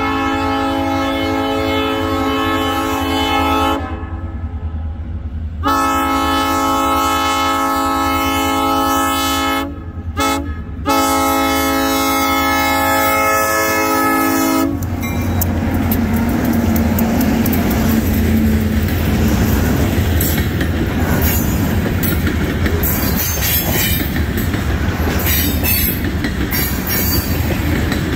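Diesel locomotive's multi-tone air horn sounding the grade-crossing signal: two long blasts, a short one, then a final long blast. About halfway through the horn stops and the locomotive rumbles over the crossing, followed by the steady clatter and sharp clicking of freight tank-car wheels rolling over the rail joints.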